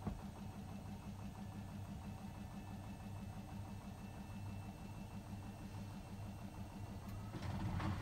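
Hotpoint WMFUG 942 washing machine running a Cotton 60 programme: a steady motor hum with a fast pulsing texture. A little after seven seconds in it grows louder and a rushing noise joins in.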